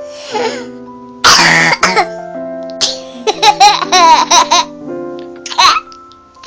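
A baby coughing hard, then breaking into a run of short giggles, then coughing again near the end, over a background music melody.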